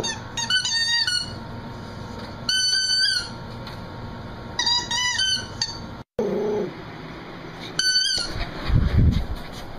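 Squeaky dog toy squeaked in four bursts of quick, high-pitched squeaks, a few squeaks to each burst. A low thud comes near the end.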